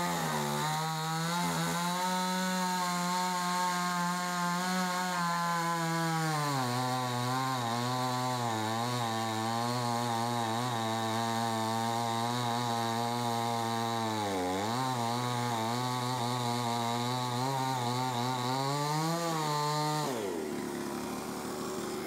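Chainsaw engine revving up and cutting into a log. Its pitch sinks under load about six seconds in and wavers through the cut, dips once more, then it revs up again briefly and falls off the throttle near the end.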